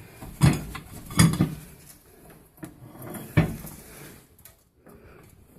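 Knocks and clatter from inside a microwave oven as its interior is wiped down: three sharp knocks, about half a second in, a second and a quarter in and three and a half seconds in, with rubbing and scraping between them.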